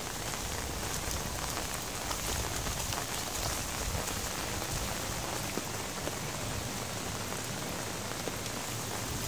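Steady rain falling on wet ground and leaves: an even hiss with many small drop ticks.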